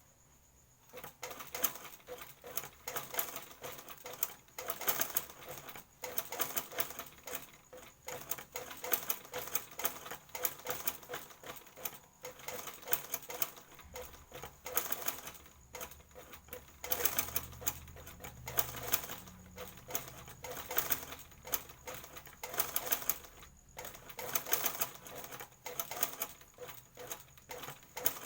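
Sewing machine stitching in runs of rapid clatter, stopping briefly twice, while hemming a skirt.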